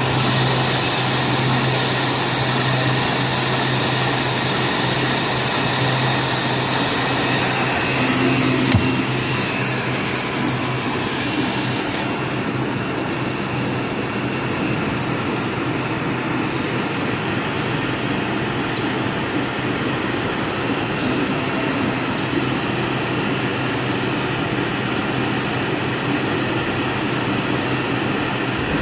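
CNC router running, a steady machine noise with a low hum. About nine seconds in there is a brief click, after which the hum drops away and the high hiss eases.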